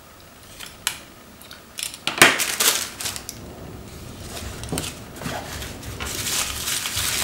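Tissue paper rustling and crinkling as small wrapped cosmetics are handled and unwrapped, with a few light clicks in the first second. The crinkling becomes denser and louder near the end.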